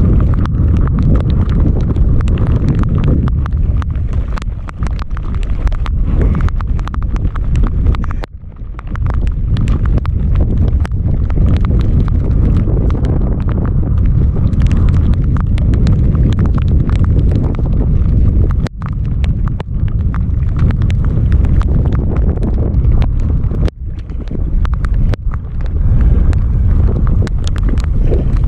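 Strong wind buffeting the camera microphone in a loud rumble, dropping off briefly a few times, with sharp taps of rain striking the camera.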